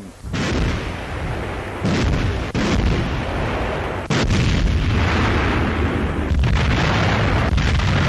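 Artillery firing and shells exploding: a continuous heavy rumble of booms, with sharp new blasts about two, two and a half and four seconds in, on an old newsreel soundtrack.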